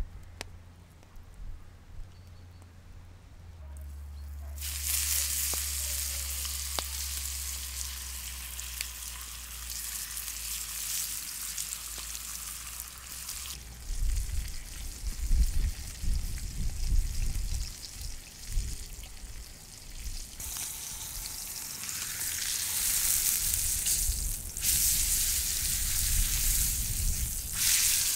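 Pork chops sizzling in hot oil on a cast-iron grill pan over wood-fire embers: a loud frying hiss that starts about five seconds in and comes and goes in several stretches, with low rumbling in the middle.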